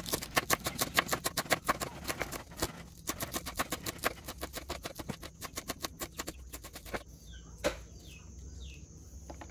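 Kitchen knife chopping Chinese celery leaves on a wooden cutting board in rapid, steady strokes, several a second, which stop about seven seconds in. In the last couple of seconds a small bird chirps faintly a few times.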